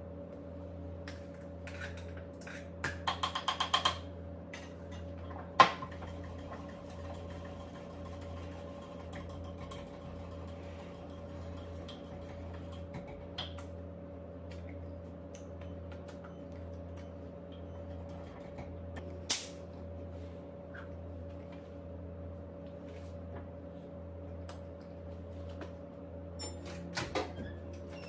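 Steady low appliance hum in a kitchen with scattered sharp clicks and knocks, including a quick run of about six clicks early on. Near the end a few clicks come as the over-range microwave door is opened.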